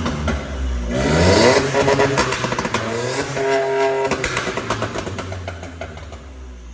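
Remapped VW Polo 1.0 TSI three-cylinder turbo engine with downpipe and open exhaust diffuser revving, its pitch rising twice, with the exhaust crackling and popping between revs from the Stage 2 remap. The sound dies away near the end.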